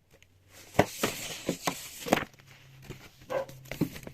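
Books and a folder being handled: several sharp knocks and a stretch of paper rustling, then a short voice-like sound a little over three seconds in.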